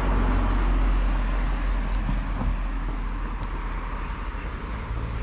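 Road traffic: a motor vehicle passing close by, a low rumble with tyre noise that is loudest at first and slowly fades.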